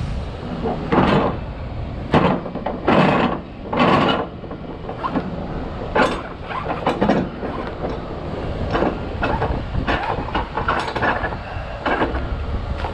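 A vehicle engine running with a steady low rumble, broken by a dozen or so irregular knocks and rattles, loudest in the first six seconds.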